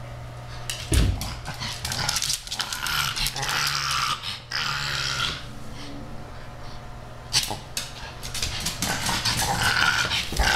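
A pug making play noises at a kitten, in bursts that come and go, with a sharp thump about a second in and another about seven seconds in.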